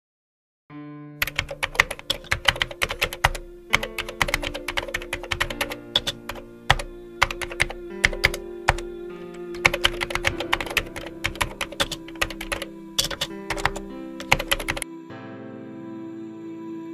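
Computer-keyboard typing, rapid clicks in uneven bursts, over soft music of held chords. The typing starts about a second in and stops near the end, while the music carries on.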